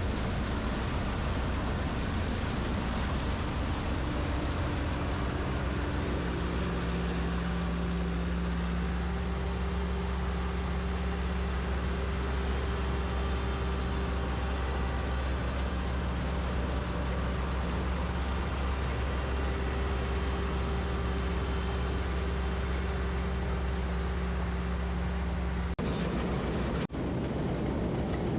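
PREET 4949 Maestro combine harvester's 102 HP engine running steadily, with a deep hum and a constant drone of its machinery. The sound breaks off briefly twice near the end.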